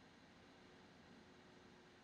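Near silence: faint room tone with a steady hiss, and a faint steady hum from about half a second in.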